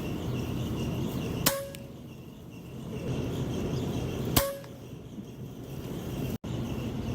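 Two shots from a .22 Hatsan PCP air rifle, about three seconds apart, each a sharp crack followed by a brief metallic ring.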